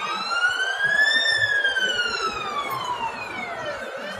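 Emergency vehicle siren wailing: one slow rise in pitch, peaking about a second in, then a long fall that fades near the end.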